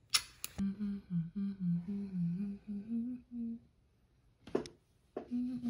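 A person humming a tune in short, stepping notes, with a pause of about a second after the first phrase before the humming starts again near the end. A couple of short breathy noises come just at the start, and another just before the humming resumes.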